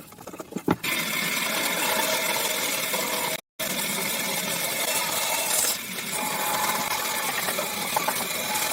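A power tool running steadily with a rattling, whirring noise. It cuts out completely for an instant about three and a half seconds in, then carries on.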